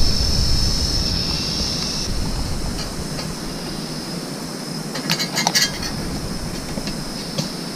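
Steady high-pitched insect buzz over low wind-and-handling rumble that dies away over the first few seconds; a short cluster of clicks and rustles about five seconds in, and a single click near the end.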